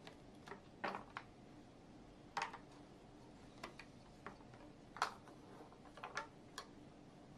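Quiet room with about a dozen light, irregular clicks and taps, like small objects being handled or keys being pressed.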